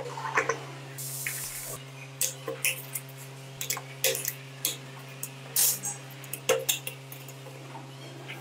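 Metal clicks, taps and light scrapes from handling the parts of a Vespa scooter clutch: a steel pick working a wire snap ring and a clutch plate being set on the clutch basket. A short hiss comes a little after one second in, over a steady low hum.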